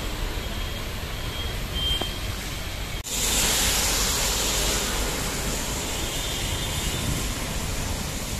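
Rain and motor traffic on a rain-soaked road: a steady hiss of rain and tyres on wet tarmac under the running of passing scooters and motorcycles. A few short faint beeps sound in the first seconds. The sound cuts out for an instant about three seconds in and comes back as a louder, brighter hiss.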